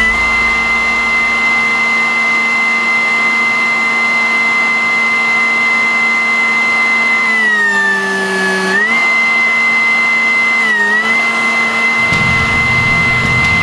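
A powered machine's motor whining at a steady high pitch. Its pitch sags for about a second, as if bogging under load, about two-thirds of the way through, dips again briefly a couple of seconds later, and picks back up each time.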